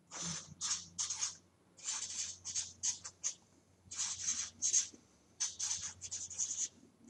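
Red felt-tip marker writing a word in cursive on paper: a series of short scratchy strokes in quick runs, with brief pauses between them.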